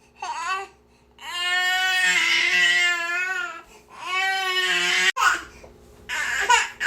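Baby crying: a short cry, then two long wails of about two seconds and one second, then shorter broken cries, with brief pauses in between. A sharp click comes about five seconds in.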